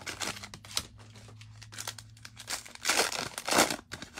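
Cellophane wrapper of a trading card cello pack crinkling as it is torn open and handled, with a louder burst of crinkling about three seconds in.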